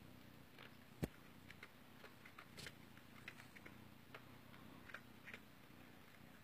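Faint, irregular little clicks and smacks of a cat chewing its food, with one sharper click about a second in.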